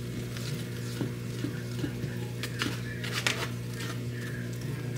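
A utensil stirring runny pancake batter in a bowl, giving faint regular clicks against the bowl about twice a second and two louder knocks a little past the middle, over a steady low hum.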